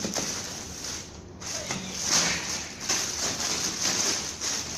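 Irregular rustling with light knocks, the sound of crib parts and their packaging being handled; it swells about two seconds in.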